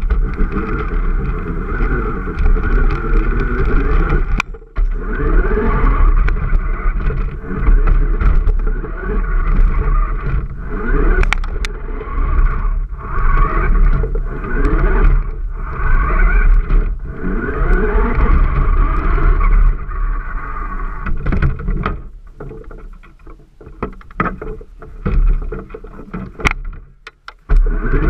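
Toy remote-control jeep's motor and gears whining up close from on board, rising in pitch again and again as it speeds up and easing between bursts. It cuts out briefly about four seconds in and runs quieter near the end.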